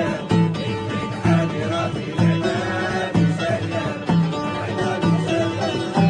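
Music with a strong beat about once a second.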